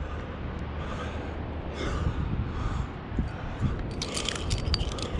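A climber breathing hard in short puffs while his hands and shoes scrape on granite, with climbing hardware clinking in the last second or so.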